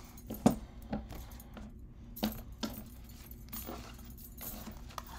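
Oracle cards being hand-shuffled: irregular light taps and clicks of the cards, with bangles jangling on the wrist.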